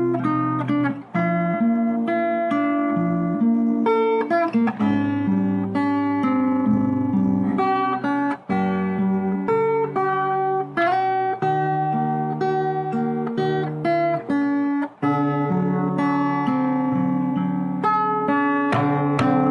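Background music: acoustic guitar plucked and strummed through a slow run of chords.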